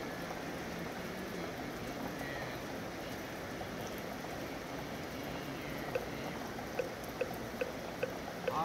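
Steady rain in a city, an even hiss of falling and running water. From about six seconds in, a run of light, evenly spaced knocks comes in, two or three a second.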